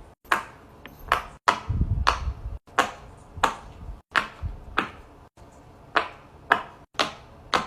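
Silicone pop-it fidget toys being handled, giving a string of sharp snaps about twice a second, with a brief low rumble of handling about two seconds in.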